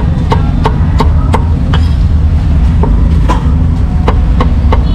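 Cleaver chopping roast pork on a wooden chopping block: a run of sharp knocks, two or three a second, pausing briefly midway. Under them runs a loud steady low rumble.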